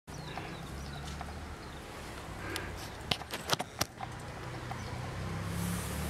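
Low steady hum of distant road traffic, with four sharp clicks in quick succession about three seconds in.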